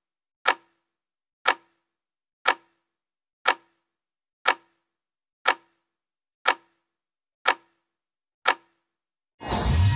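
Countdown-timer sound effect: nine clock-like ticks, one each second, then a sudden loud hit with a ringing tail near the end as the count runs out.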